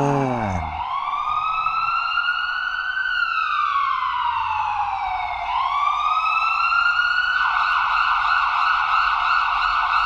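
Ambulance siren wailing: a slow rise, a long slow fall and another rise, then about two-thirds of the way through it switches to a fast, rapid yelp.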